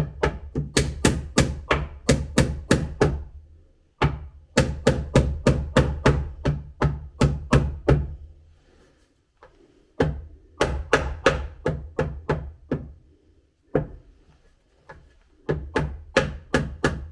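Claw hammer striking a recycled-wood stair tread being fixed in place: quick runs of sharp blows, about three or four a second, broken by short pauses.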